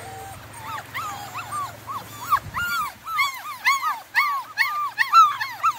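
Small Munsterlander puppies crying in a run of short, high, arching cries. The cries come a few a second and grow more frequent and louder after about two and a half seconds.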